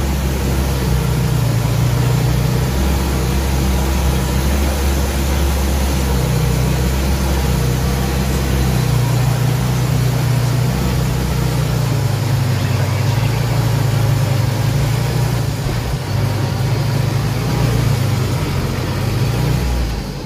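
Four-cylinder 1.9 TDI turbodiesel engine of a homemade tractor running steadily under load while pulling a three-furrow plough through the soil, heard from the cab. Its low note shifts slightly a few times.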